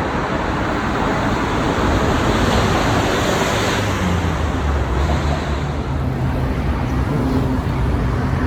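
Steady city traffic noise heard from the street. About halfway through, a low vehicle engine hum joins in.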